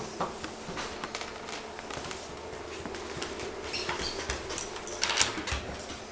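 Wheaten Terrier puppy moving and scrabbling about on a wooden floor close to the camera, with rustling and scattered clicks. The loudest rustle comes about five seconds in.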